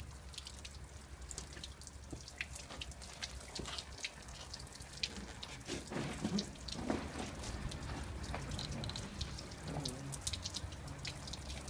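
Scattered drips and small splashes of water as hands work in a torn, wet plastic flexibag that holds dirty water instead of oil.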